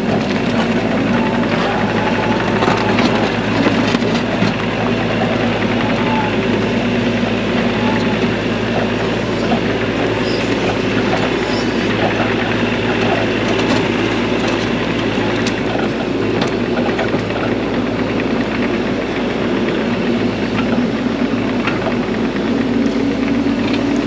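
Bobcat E42 mini excavator's diesel engine running steadily while it grades, with scattered light knocks and clicks from the machine working.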